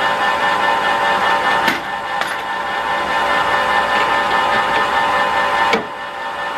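Manual toolroom lathe running at speed, a steady machine whine from the headstock. Sharp metal knocks come about a second and a half in, again just after, and near the end, as a drill chuck with a centre drill is fitted into the tailstock.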